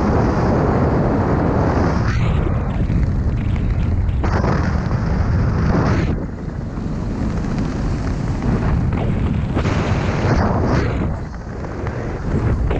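Wind buffeting a helmet camera's microphone during a descent under an open parachute canopy: a loud, gusty rumble that surges and eases every few seconds.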